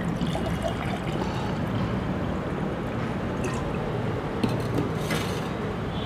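Water pouring from a steel thermos flask into a drinking glass, a steady filling stream, with a brief knock about five seconds in.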